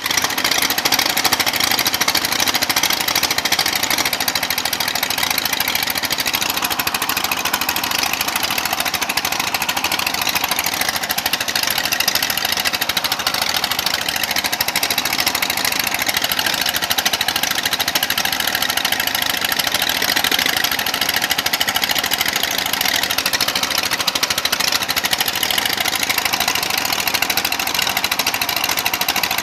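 Engine of a floating suction-dredge raft running steadily with a fast, hard knocking rhythm.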